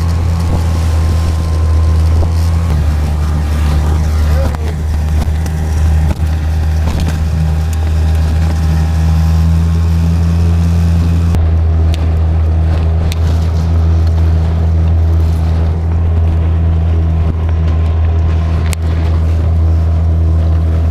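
Tohatsu 20 hp outboard motor running steadily at cruising speed, driving an inflatable boat through choppy water. A high hiss over the engine drops away sharply about halfway through, while the engine's low hum carries on unchanged.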